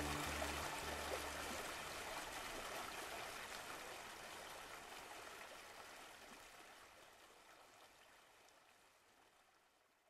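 Rushing water of a small waterfall, a steady splashing hiss that fades out gradually to near silence. A few low sustained music notes end about a second and a half in.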